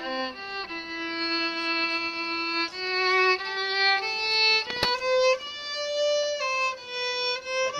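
Violin playing a slow melody of long held notes, one note at a time, with a single sharp click a little under five seconds in.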